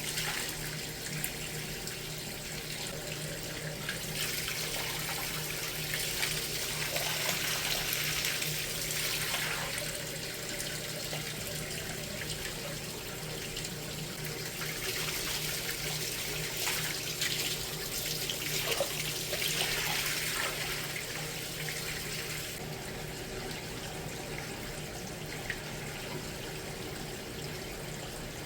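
Water draining and splashing out of the opened back of a boiler with a leaking tube: a steady rush of running water that swells twice and eases near the end, over a steady low hum.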